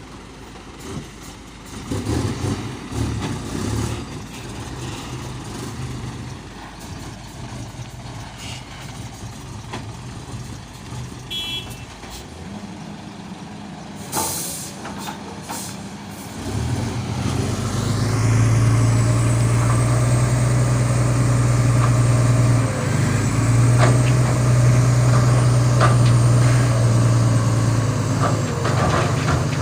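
Heavy truck's diesel engine running low at first, with a short hiss around fourteen seconds in. About seventeen seconds in it rises and settles into a loud steady pull, dropping briefly near twenty-three seconds before running on.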